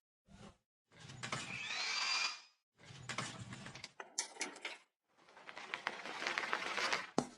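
Short bursts of workshop tool noise and handling clatter, broken by sudden silent gaps. About a second in, a power tool's high whine climbs briefly.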